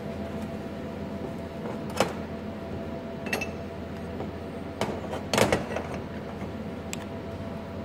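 Steel hinge parts, a machined sleeve and a flat bar tab, knocking and clinking on a steel workbench as they are handled into position: a handful of short metallic knocks, the loudest a quick double knock a little past halfway. A steady machine hum sits underneath.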